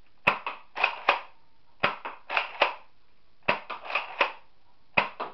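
Nerf Zombie Strike Doominator blaster being primed and fired shot by shot: about fifteen sharp plastic clacks and snaps in quick clusters of two to four, with short pauses between.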